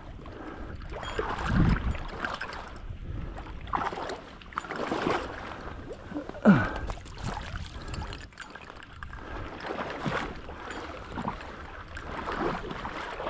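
Water sloshing and splashing close by, in irregular surges, with one sharper splash about halfway through.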